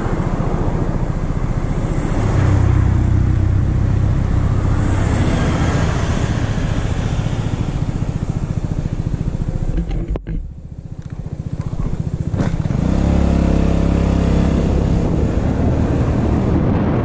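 Small scooter engine idling, its sound dropping away sharply about ten seconds in, then coming back and revving up as the scooter pulls away and gathers speed.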